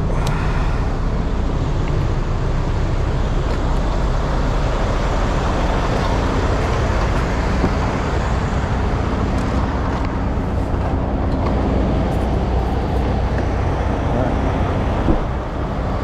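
Steady low drone of idling truck engines, even throughout, with a single short knock near the end.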